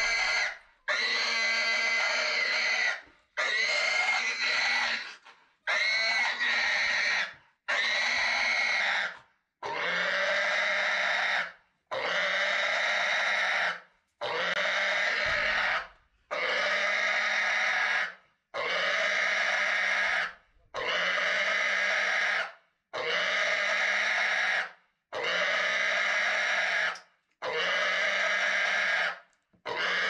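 A pig screeching over and over while held for hoof trimming, a sign of its distress at being restrained. About fifteen long, loud squeals of up to two seconds each follow one another with only brief breaks between.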